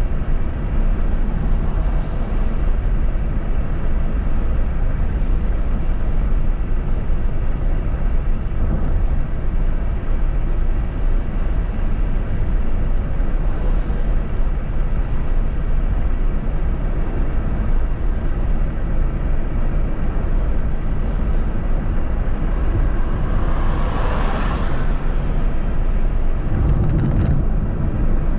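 Steady road and wind noise of a vehicle travelling at speed on a highway. About three-quarters of the way through, a brief swell rises and fades, like another vehicle passing.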